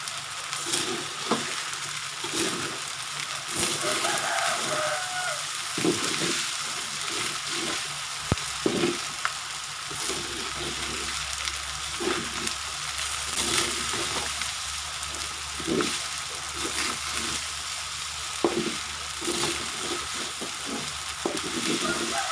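Fried rice with egg sizzling in a wok while a metal spatula scrapes and knocks against the pan, turning the rice in an irregular stirring rhythm of about one or two strokes a second.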